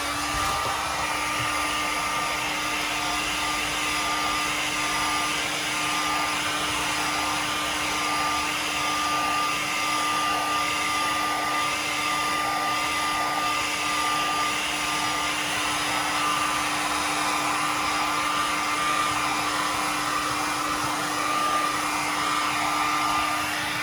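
Handheld hot-air blower running steadily, heating and shrinking vinyl tint film. It makes a continuous rushing blow with a steady low hum and a thin whine on top. It switches on at the start and cuts off at the end.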